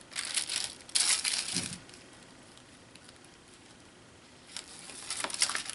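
Wax paper crinkling and rustling as it is peeled off wet paint and handled. It comes in two spells: one in the first couple of seconds and another near the end, with a quiet gap between.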